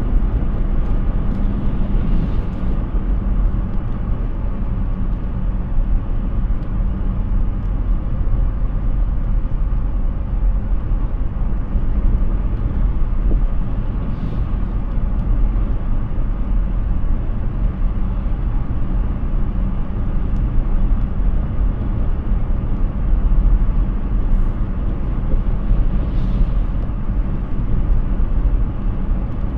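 Steady road and tyre rumble of a Hyundai Ioniq 6 electric car driving, with no engine note. A brief swish comes three times, about twelve seconds apart.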